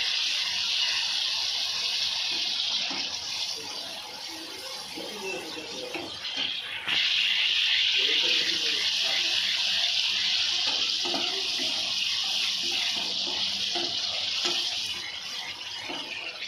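Onion, spice and yogurt masala sizzling in hot oil in a frying pan as it is stirred with a wooden spatula. The sizzle is steady, sinks lower for a few seconds and comes back up suddenly about seven seconds in.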